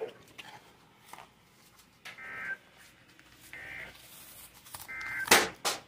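NOAA Weather Radio EAS/SAME header: three short bursts of screechy digital data tones about a second and a half apart, the coded header that opens a new weather alert. A loud burst of crackling noise follows near the end.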